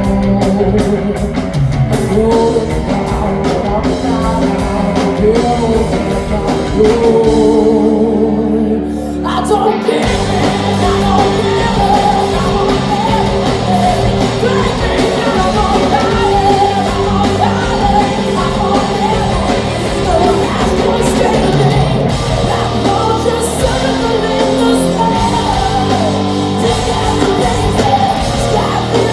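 Hard rock band playing live and loud in a large hall: distorted guitar, bass, drums and a female lead singer. About eight seconds in, the cymbals and high end drop out for a moment before the full band comes back in.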